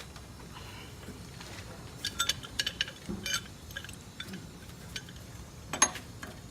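Small metal parts clinking: a quick run of light, ringing clinks about two seconds in, then one sharper clink near the end, as brass gas fittings and tools are handled during the valve installation.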